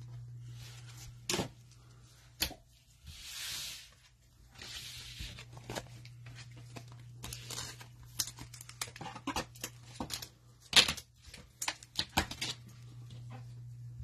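Football trading cards handled in gloved hands: cards sliding and rubbing against each other in short rustling stretches, with many sharp clicks and flicks as they are flipped, over a steady low hum.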